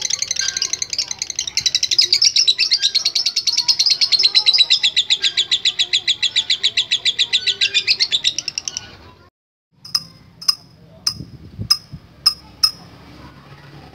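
Lovebird's long 'ngekek' chatter: a fast, even run of sharp high notes held for about nine seconds, which stops abruptly. After a brief gap come about seven separate sharp chirps.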